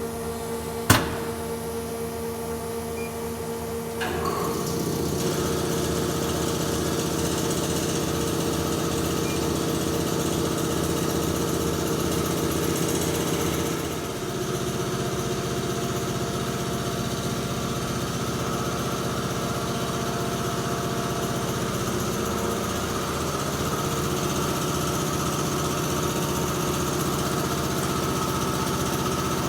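Amada TPL-150S 150-ton mechanical link press running on a test run: a steady machine hum with several held tones. A sharp click comes about a second in, and about four seconds in the hum grows louder and fuller. It dips briefly and changes pitch near the middle.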